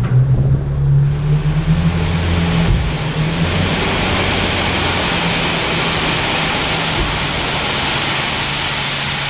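Cassette dump truck's diesel engine revving up at the start and holding raised revs to drive the tipping hydraulics, with a loud steady rushing noise over it from about a second in, growing louder a little later.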